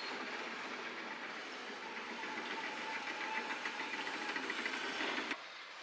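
Komatsu PC240 hydraulic excavator running while it works, a steady mechanical noise with a fast rattling clatter through the middle, cutting off abruptly near the end.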